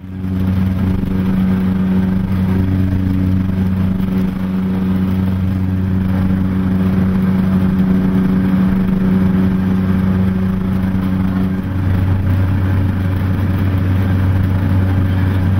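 Cabin drone of a Beechcraft King Air's twin PT6A turboprops in flight: a loud, steady, low engine-and-propeller hum. Its tone shifts about twelve seconds in.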